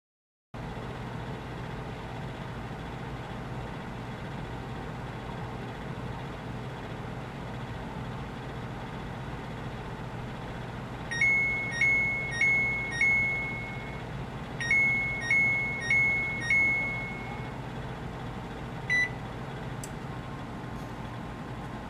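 Electric oven's cook timer going off at the end of the bake time: two sets of four beeps, the last beep in each set held longer, then a single short beep near the end, over a steady background hum.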